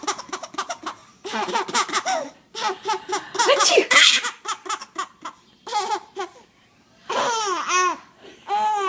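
A six-month-old baby laughing in repeated bouts, with a pause of about a second two-thirds of the way through.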